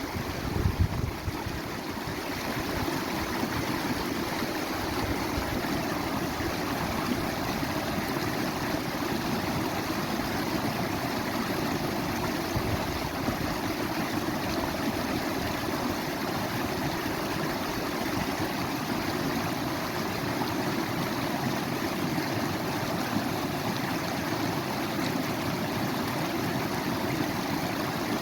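Running water, a steady, even rush. There are a few brief low thumps in the first second.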